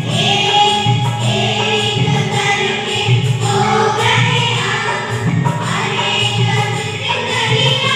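Children's choir singing in unison into microphones, with electronic keyboard accompaniment.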